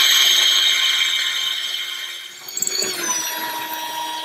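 Cordless drill with a masonry bit boring into a concrete block wall, the motor whining steadily under load. It eases about two seconds in and shifts pitch about three seconds in.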